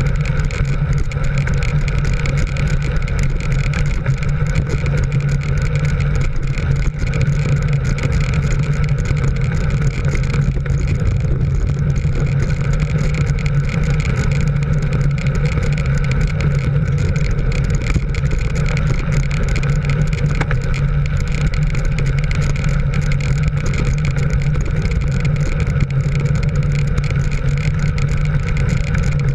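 Steady engine drone of the camera vehicle driving at speed, mixed with wind rush on the microphone.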